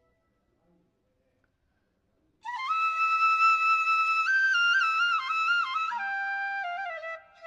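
Background music: after a couple of seconds of near silence, a solo flute plays a short melody of stepping notes that ends on a lower held note.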